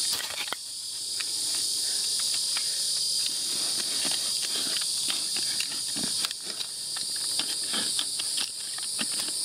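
Steady high-pitched insect chorus, with scattered light clicks and scrapes that grow more frequent from about three seconds in.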